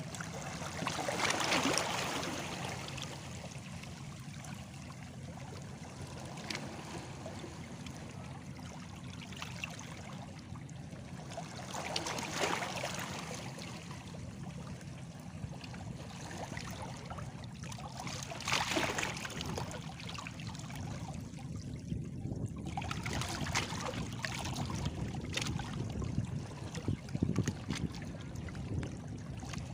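Small sea waves washing against stones, a steady watery wash broken every several seconds by a louder splash as a wave hits the rock.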